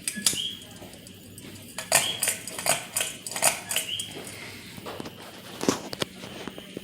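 Ceiling fan running, with a short high squeak that comes back about every second and a half, and scattered clicks and knocks.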